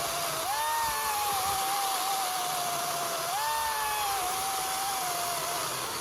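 Ego 56-volt battery chainsaw ripping lengthwise into a dry oak log: a steady electric motor whine over the rasp of the chain. Twice, about half a second and three seconds in, the pitch jumps higher, then sags slowly as the chain is pressed into the cut and slows under load.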